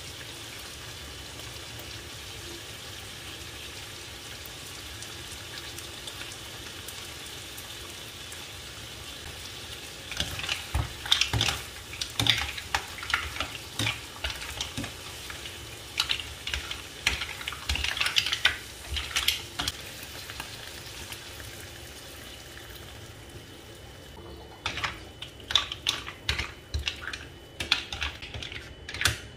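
Green mussels in their shells sizzling in a non-stick frying pan over a gas flame, a steady hiss. About ten seconds in, and again near the end, a cooking spoon stirs them, and the shells clack against each other and the pan in quick runs of clicks.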